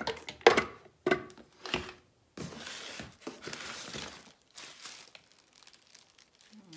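Blue plastic blender parts clattering, with three sharp knocks in the first two seconds, then about two seconds of rustling and crinkling as packaging is dug out of a cardboard box, fading to faint rustles.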